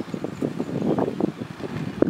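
Wind buffeting the microphone: an uneven, gusting rumble.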